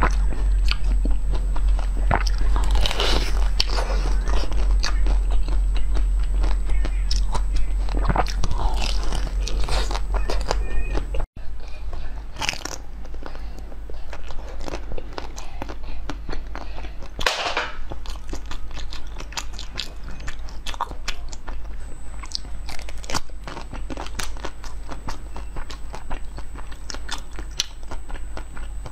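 Close-miked eating sounds: biting and chewing soft jelly sweets, with many small wet mouth clicks and a few louder bites. About eleven seconds in, the sound cuts and the background gets quieter.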